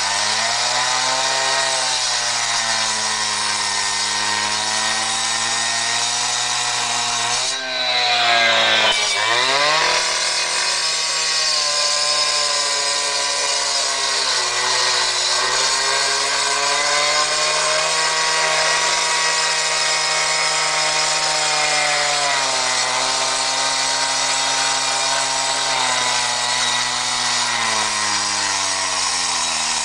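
Gas-powered two-stroke cut-off saw (K-saw) running at high revs while its blade cuts into a concrete block wall to breach it. The engine pitch sags and recovers as the blade bites and is moved along the cut, dropping briefly about eight seconds in before racing back up.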